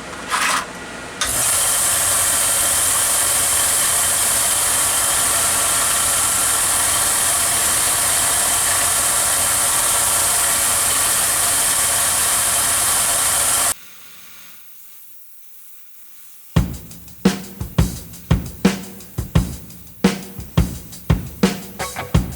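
Refurbished belt sander switched on after a brief blip, running steadily for about twelve seconds, then cutting off suddenly. A few seconds later, music with a steady drum beat starts.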